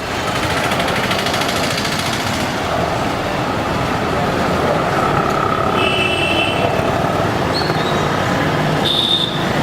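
Steady street traffic noise, with short high tones about six and nine seconds in.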